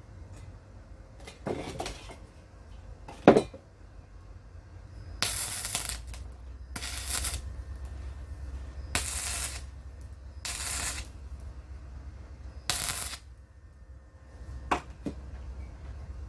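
Five short bursts of arc welding on a steel-pipe greenhouse frame, each under a second long and a second or two apart, like quick tack welds on a ridge joint, over a low hum. A sharp metallic knock comes a few seconds before the welding starts.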